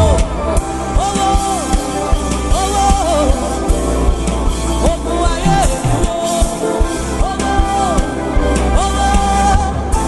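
Gospel song music with a steady beat and a short melodic phrase repeating over and over, with some singing.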